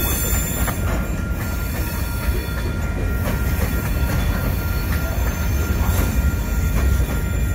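Freight train of hopper cars rolling past at speed: a steady rumble of steel wheels on rail, scattered clicks at the rail joints, and a thin steady high wheel squeal.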